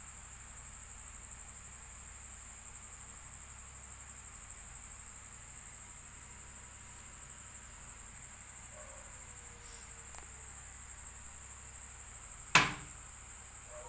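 Insects trilling steadily in one unbroken high tone, with a single sharp knock near the end.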